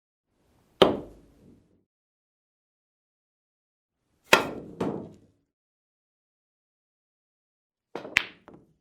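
Pool balls being struck and clacking together in three separate shots a few seconds apart. The second shot has two hits in quick succession and the last is a quick run of three or four clicks.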